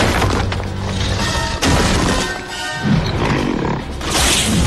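Cartoon fight soundtrack: dramatic action music under crash and impact effects, with sudden hits about one and a half seconds in and again near the end, and a monster-like roar from an alien creature.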